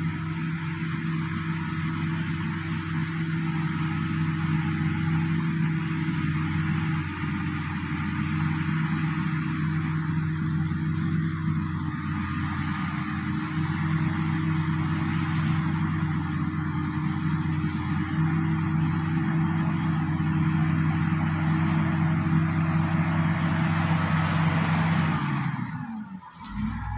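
Shantui SD16 crawler bulldozer's diesel engine running steadily under working load, with a constant hum and a dense rushing noise over it. It breaks off abruptly near the end.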